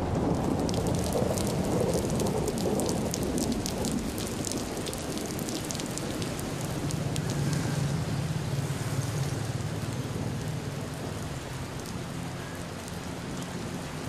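Heavy rain falling and pattering on plastic tarpaulins, with a low rumble of thunder underneath.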